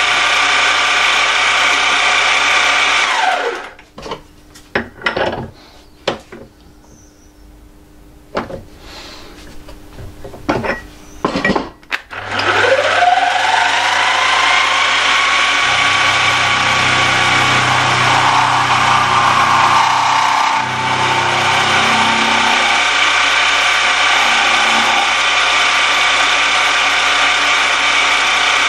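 Milling machine spindle running, then winding down with a falling whine about three seconds in. A handful of knocks and clicks follow as the steel workpiece is reset in the vise. The spindle then starts again with a rising whine at about twelve seconds and runs steadily, with a lower rumble for several seconds mid-way as the end mill cuts.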